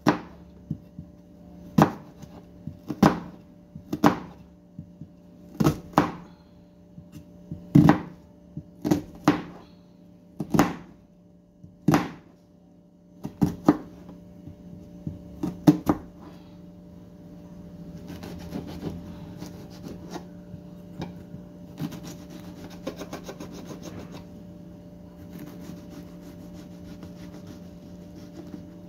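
Knife cutting an onion on a cutting board: sharp single chops about every one to two seconds for the first half, then quicker, lighter knife work. A steady low hum runs underneath.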